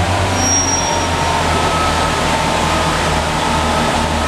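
British Rail Class 143 Pacer diesel railbus pulling away, its underfloor diesel engines running under power with a steady low rumble and a steady whine. A brief high-pitched tone sounds about half a second in.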